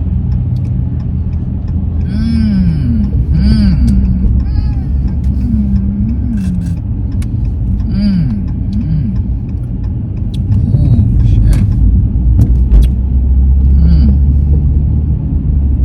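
Steady low road rumble inside a moving car's cabin. A voice makes short vocal sounds that rise and fall in pitch, several times.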